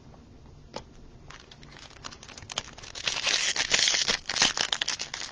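Crinkling plastic or foil as trading cards are handled. There is a single tick about a second in, then a rapid crackling rustle that builds and is loudest in the second half.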